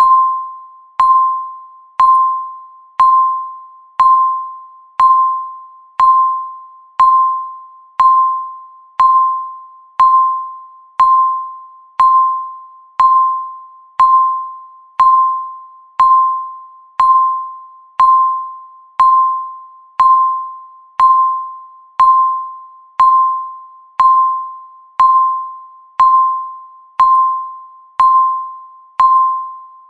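A countdown timer's tick sound, one per second: each is a sharp click with a clear ringing tone that fades before the next.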